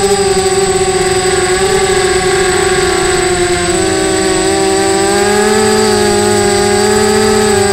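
Mini quadcopter's electric motors and propellers whining, heard from the camera on board; the pitch dips about three and a half seconds in and rises again as the throttle changes. A steady high-pitched tone sits above it.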